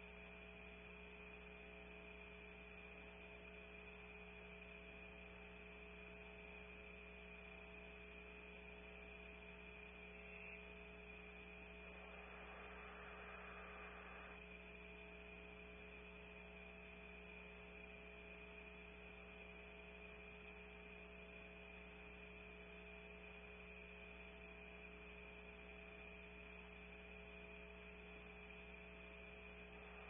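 Near silence: the nest camera's audio feed carries a steady electrical hum with a thin high tone over a low hiss. A faint, slightly louder patch of hiss comes about twelve seconds in and lasts a couple of seconds.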